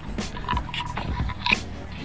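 Background music with a regular beat over a low steady rumble.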